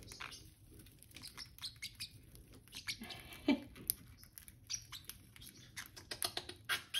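Baby parrotlets chirping in short, scattered high notes, with small clicks from their beaks picking at a millet spray.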